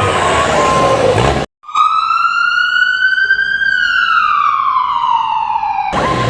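Siren sound effect: a single slow wail, one clear tone rising for about two seconds and falling for about two more, starting after a brief silence and cut off abruptly near the end. Before it, about a second and a half of busy mixed sound.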